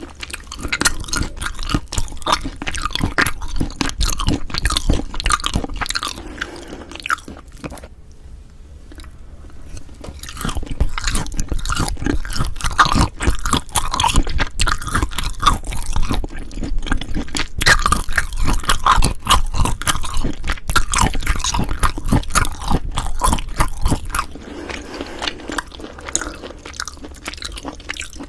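Close-miked eating sounds: wet, crackly chewing and biting, dense with small clicks. It eases off briefly about a third of the way in and turns softer near the end.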